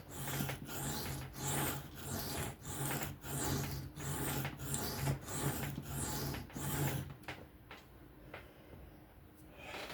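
Knife blade of 14C28N steel stroked freehand across an Atoma 400 diamond sharpening plate: scraping strokes about twice a second that stop about seven seconds in.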